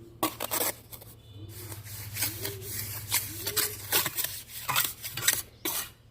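Hand tools scraping and clinking in a quick irregular series of short strokes over a steady low hum, with three short squeaky rising-and-falling tones in the middle.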